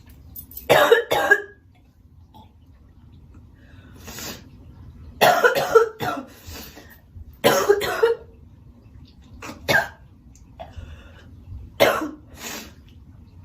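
A girl coughing in about five short bouts of two or three quick coughs each, with brief pauses between them.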